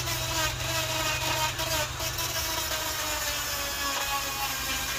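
Die grinder with a carving burr running at high speed and cutting into the wood of a log: a steady whine that wavers slightly in pitch as the burr bites, over a rough grinding rasp.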